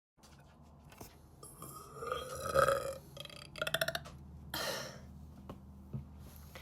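A person burping several times. First comes a long, drawn-out burp that wavers in pitch, the loudest, then a short rattling burp a little later, and an airy one after that.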